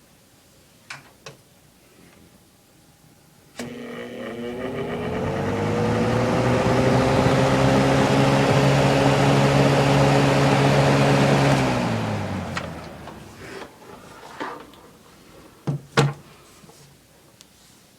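Lasko 3733 box fan switched on: its motor hum rises in pitch as it spins up to speed, with rushing air over it. It runs steadily, then is switched off and winds down, the hum falling away. Short clicks come near the start and a louder pair near the end.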